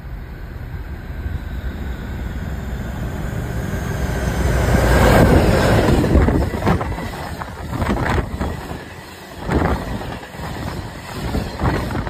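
Class 56 diesel-electric locomotive, with its 16-cylinder Ruston-Paxman engine, approaching and passing at speed, loudest about five seconds in. A train of tank wagons follows, rumbling past with repeated clatters of wheels over the rail joints.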